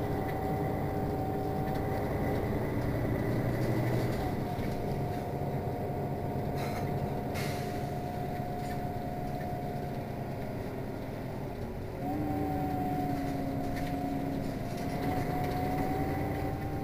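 Mercedes-Benz Citaro city bus running: a steady engine drone with a high whine that holds its pitch. The whine changes about four seconds in, and again about twelve seconds in, when a lower second whine joins it. Two short clicks come about seven seconds in.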